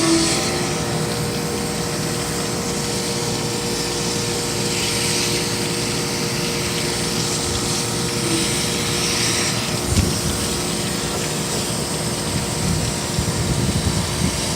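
Hose water under high pressure spraying into a clogged condenser coil, hissing in spurts over a steady machinery hum. A single knock about ten seconds in.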